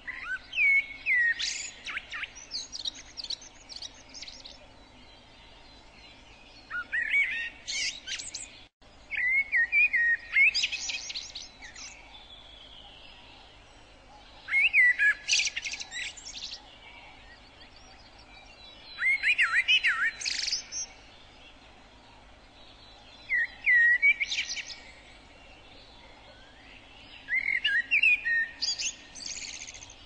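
A songbird singing short phrases of quick, varied, sliding notes, about one phrase every four to five seconds.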